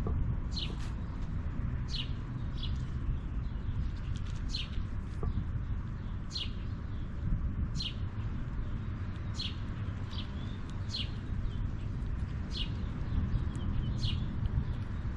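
A bird calling over and over, short high chirps that fall in pitch, about one each second, over a steady low rumble.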